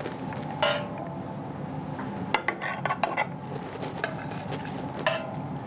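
Metal ladle and fork clinking against a stainless-steel pot and a ceramic serving platter while food is served out. There are a few single clinks, with a run of quick taps in the middle, over a steady low hum.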